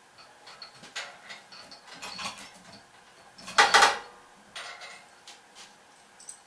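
Metal parts clinking and clanking as a steel machine dolly and its mounting hardware are shifted into place, a scatter of small clicks and knocks with one loud metallic clatter about three and a half seconds in.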